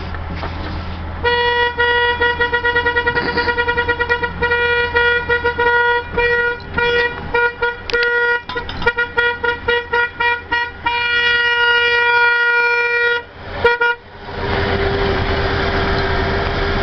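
Small add-on horn wired into a 1994 Ford F-150, honked over and over on one high pitch for about thirteen seconds. It goes in a long blast, then rapid short toots, then longer blasts, and stops abruptly. A steady rushing noise follows.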